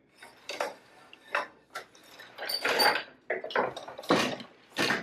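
Several short rustles and light wooden clatters from hands working a wooden floor loom and its warp threads, with a longer rustle about two and a half to three seconds in.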